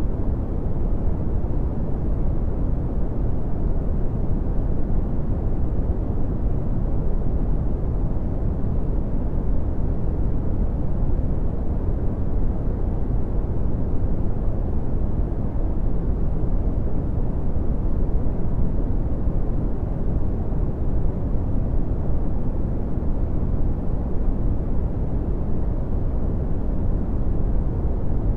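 Red (Brownian) noise: a steady, unchanging rumbling hiss, strongest in the bass and dropping off smoothly toward the treble.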